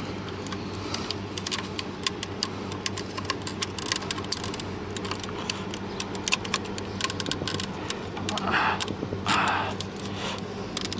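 Scattered plastic clicks and rattles as a wiring connector is worked onto the back of a car door's armrest window-switch panel, with two short scraping rustles near the end, over a steady low hum.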